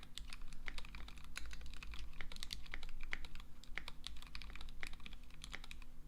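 Typing on a KBDFans D65 mechanical keyboard with Gateron Black Ink V2 linear switches in a brass plate and Infinikey keycaps, with the foam between PCB and case removed. It is a quick, continuous run of keystroke clacks, several a second.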